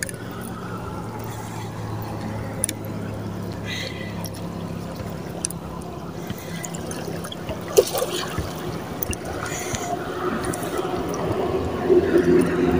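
Shallow seawater lapping and trickling among boulders at the waterline, over a steady low hum, with a few scattered small clicks.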